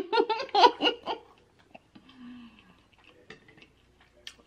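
A woman's short wordless vocal sounds in the first second, then a soft low hum, with a few light clicks as a mussel shell is handled.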